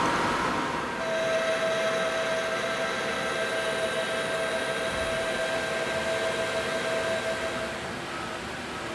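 Manual metal lathe running with its chuck spinning, giving a steady whine. The whine dies away near the end as the lathe stops.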